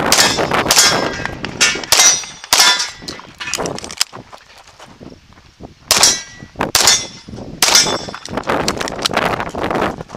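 A string of CZ pistol shots, each followed by the ringing clang of a steel target plate being hit. The shots come in quick succession, with a pause of about two seconds around the middle before the next run.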